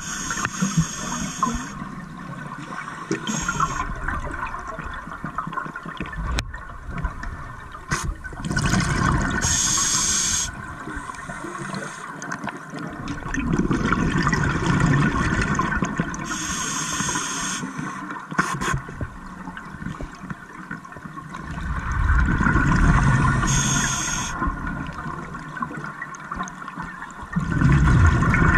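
Scuba diver breathing through a regulator underwater: a short hissing inhale about every seven seconds, each followed by a longer rush of exhaled bubbles.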